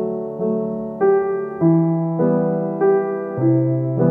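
Background music: a gentle piano tune, a new note or chord struck about every 0.6 seconds and left to ring and fade.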